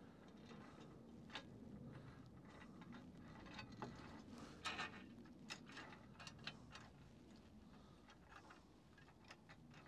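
Near silence broken by faint, irregular clicks and taps of the awning bracket parts and bolts being handled and fitted, with a busier cluster about halfway through.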